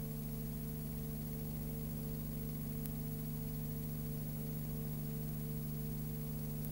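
A steady low hum with an even hiss and no other events: the background noise of a silent cine film's transfer to video.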